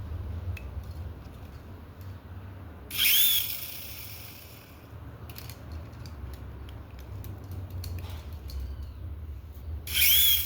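Small electric motor of a toy helicopter whirring in two short loud bursts, about three seconds in and again near the end, over a steady low rumble.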